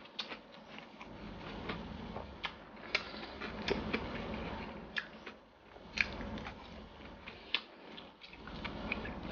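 Close-up eating sounds: a man chewing a mouthful of rice and chicken rendang, with scattered sharp wet clicks and lip smacks from his mouth.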